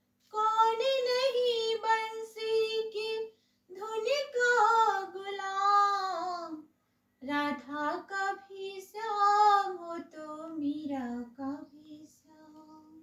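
A woman singing a Hindi devotional song to Krishna unaccompanied, in long, sliding, ornamented phrases with short breaths between them, trailing off softly near the end.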